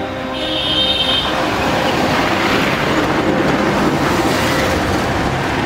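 A car passing close by on the road, its noise swelling and then easing off, with background music at the start.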